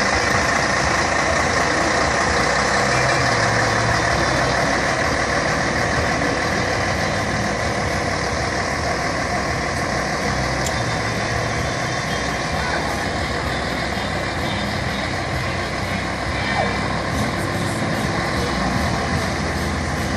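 Scania diesel engine of a Viação Cometa Flecha Azul coach running as the coach drives slowly away, the sound fading gradually.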